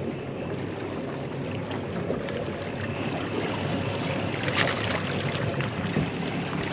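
Boat outboard motor running at a low, steady hum, with water washing at the stern. A brief sharp noise stands out about four and a half seconds in.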